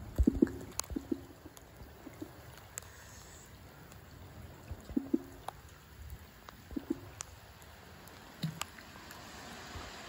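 Water gurgling and dripping in irregular short low plops, with scattered light ticks over a faint hiss.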